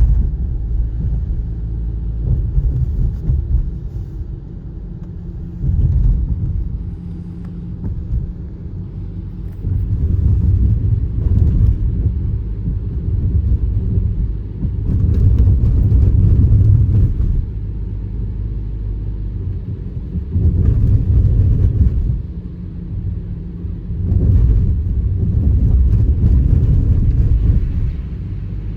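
Low road and engine rumble heard from inside a moving car on a winter road, swelling louder several times.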